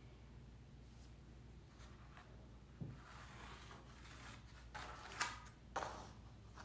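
Faint pencil scratching along a metal ruler on a stretched canvas, with a few short knocks and scrapes as the ruler is picked up and set down again.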